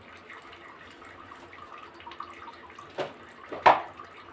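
Faint steady watery hiss from rasam heating in a stainless steel kadai on a gas stove, not yet frothing. About three seconds in come two short sharp knocks, the second louder.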